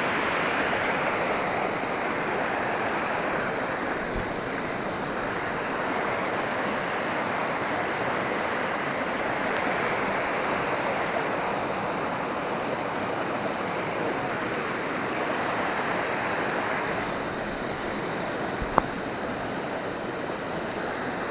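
Waterfall rushing steadily, a constant hiss of falling water. A single sharp click near the end.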